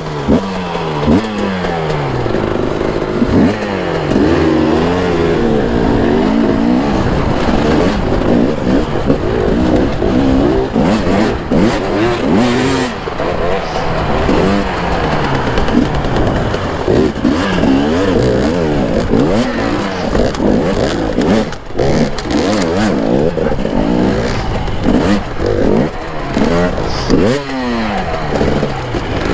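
Two-stroke enduro motorcycle engine being ridden hard, revving up and falling back again and again, roughly every second or two, as the throttle is worked. Occasional short knocks and clatter sound over the engine.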